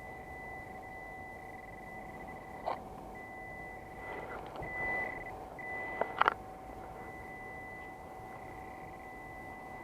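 Metal detector giving a steady electronic tone throughout, with a higher tone coming and going over it. There is a sharp knock about three seconds in and a short clatter of knocks about six seconds in.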